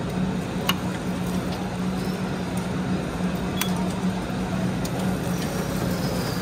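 Steady low hum of a convenience-store interior, with a few light clicks and clinks as a plastic cup of ice is set into a self-serve coffee machine and a button is pressed.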